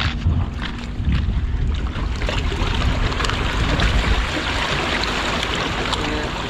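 Small sea waves washing and splashing over breakwater rocks, with wind buffeting the microphone; the rush of water grows denser about two seconds in.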